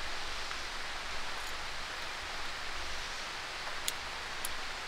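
Steady hiss of light rain falling, with two sharp ticks near the end.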